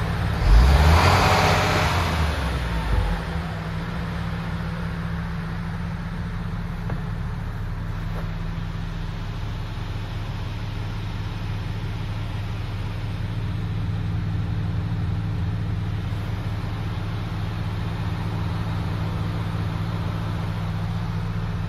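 MAN TGX 26.480's 480 bhp Euro 6 diesel engine idling steadily in neutral, heard from inside the cab. About half a second in, a loud burst of noise dies away over about two seconds.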